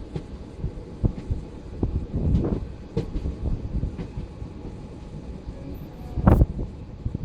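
Passenger train running on the rails: a steady low rumble with irregular wheel clacks and knocks, and one loud clunk about six seconds in.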